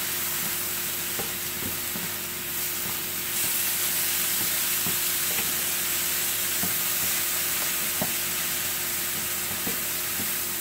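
Cauliflower rice sizzling in a hot pan while two wooden spatulas toss and scrape it, with scattered light taps of the spatulas against the pan. The rice is being browned with its seasoning.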